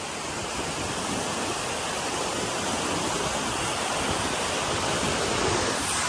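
Tall waterfall pouring onto boulders: a steady rushing noise of falling water that grows slightly louder.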